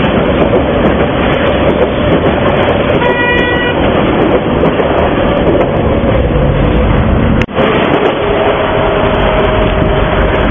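Moscow metro trains running on open-air track: a steady, loud rumble of wheels on rail, with one short horn toot about three seconds in. The sound drops out for an instant at about seven and a half seconds, then an approaching train's rumble carries two steady humming tones.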